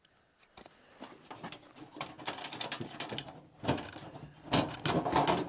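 Gear being rummaged in a truck camper's outside storage compartment: irregular rustles, clicks and knocks, louder in the last couple of seconds.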